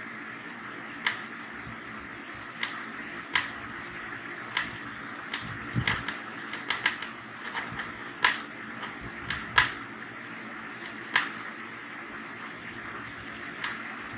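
Irregular sharp clicks and taps of a screwdriver and small metal parts as screws are undone from an LED TV's main board, about a dozen over a steady background hiss.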